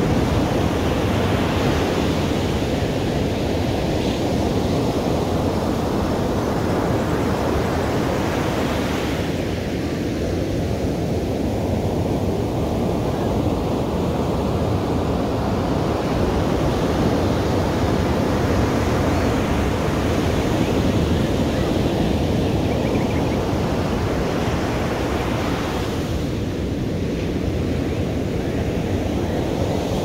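Ocean surf: waves breaking and washing up a beach in a continuous rush. It swells as a wave crashes, about every several seconds, most strongly near the start, around a third of the way in, and near the end.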